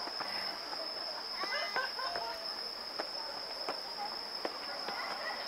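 A steady, high-pitched chorus of night insects, with distant chatter of people and a few sharp knocks.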